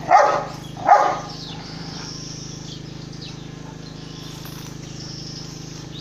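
A Rottweiler barking twice at a goat, two loud short barks about a second apart. Faint bird chirps follow over a steady low hum.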